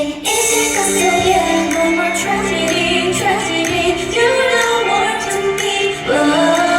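K-pop song with female vocals over an amplified backing track, sung live through a concert PA in a large hall.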